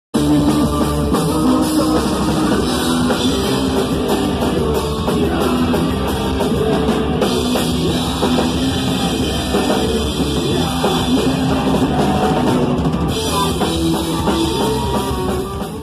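Punk rock band playing live and loud: pounding drum kit, distorted electric guitar and bass under shouted vocals, starting abruptly and cutting off near the end.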